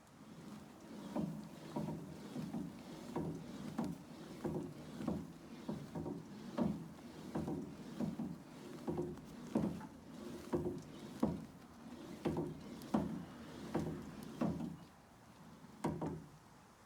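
True M50 elliptical trainer in use, knocking sharply about one and a half times a second in time with the stride over its rhythmic swish. The knocks die away near the end. The knocking is a fault in a new machine: the owner says something is moving around inside and can feel it through the pedals.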